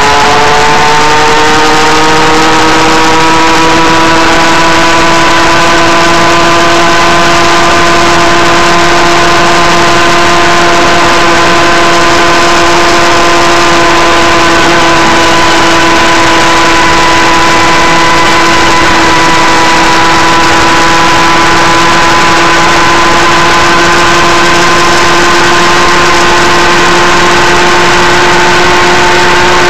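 Go-Ped GSR25's small two-stroke engine, fitted with a new exhaust pipe, running hard under way; its pitch climbs over the first couple of seconds, then holds nearly steady at high revs, over a rush of wind noise.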